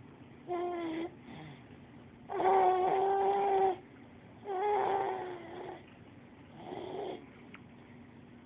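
A baby vocalizing: four drawn-out, high-pitched voice sounds, each held mostly on one steady pitch, the second one, about a second and a half long, the loudest.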